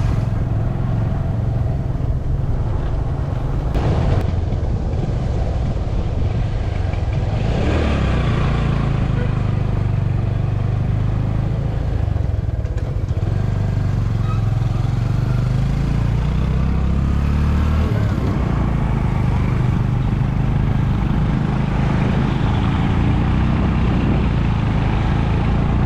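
A motor vehicle's engine running while under way, its low drone shifting up and down in pitch several times, over a steady rushing noise.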